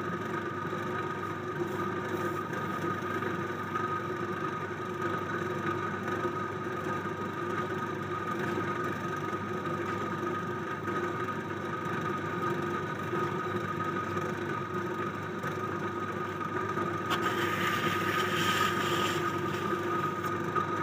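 Motor-driven potter's wheel running with a steady hum and constant pitch. Near the end a rougher scraping hiss joins in as a tool is held against the edge of the spinning clay lid.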